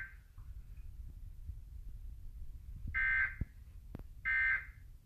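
Two short warbling bursts of Emergency Alert System SAME digital data, about a second and a half apart: the end-of-message code that closes the Required Weekly Test. Before them is a few seconds of low hum.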